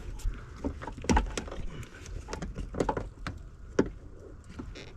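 Irregular clicks and knocks of hands working a rubber wiring grommet and its hard plastic fittings out of a truck door.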